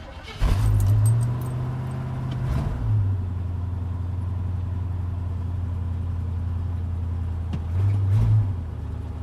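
1984 Chevy K10 pickup's carbureted gasoline engine starting after a brief crank. It revs up for about a second and then settles into a steady idle, with two short blips of the throttle: one about two and a half seconds in and one near the end.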